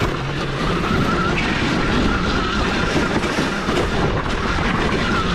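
Home-built electric dirt bike with a Zero SR motor riding over a rough dirt trail: a steady rush of wind and tyre and chassis rattle over the ground, with a faint wavering whine from the electric drivetrain and no engine note.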